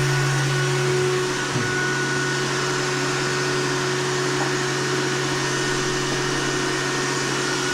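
Electric transfer pump running steadily with a constant hum and hiss while it pumps heating oil back into the tank.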